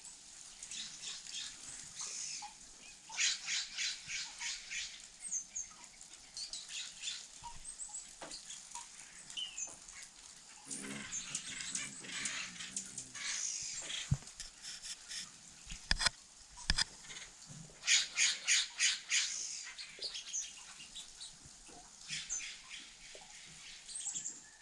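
Small birds calling at winter feed: scattered high chirps and rapid runs of repeated notes, about eight a second, with a few dull knocks in the middle.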